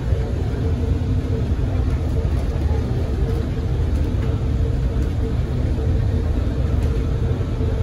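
Cabin noise of a Bombardier Innovia APM 100 rubber-tyred people mover running at speed along its concrete guideway: a steady low rumble from the tyres, with a faint steady hum over it.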